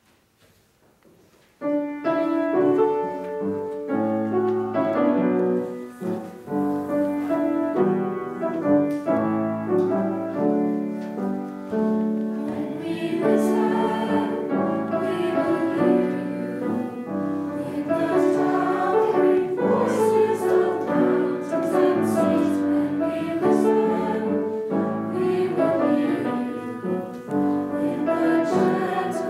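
Small youth choir singing with piano accompaniment, beginning suddenly about two seconds in after near silence.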